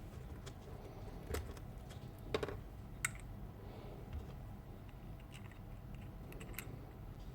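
A few small, sharp clicks and knocks of parts being handled while the cordless grease gun is reassembled, spaced irregularly over a low background hum.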